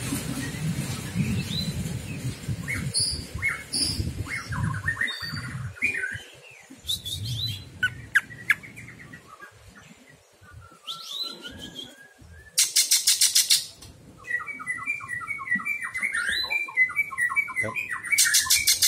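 Cucak ijo (greater green leafbird) singing: a varied run of whistled notes and slurs, broken twice by a fast, harsh rattling trill about a second long. A low rumble sits under the first few seconds.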